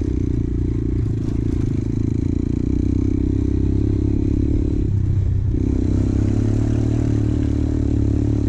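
Motorcycle engine running steadily under load while riding, its note breaking off briefly about five seconds in.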